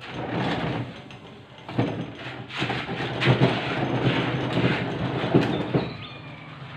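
A plastic patio table dragged in pulls across a concrete floor, its legs scraping, with several sharper knocks along the way.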